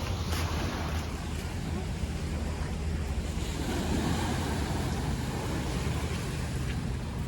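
Wind buffeting the microphone, a steady low rumble, over the wash of sea water around a paraw outrigger sailboat.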